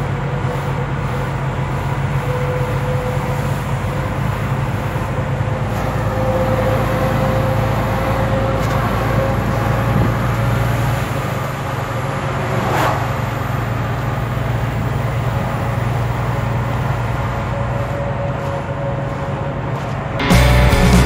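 Lorry driving, heard from inside the cab: a steady low engine and road drone with a faint steady whine over it. About two-thirds of the way through, a brief sound falls quickly in pitch.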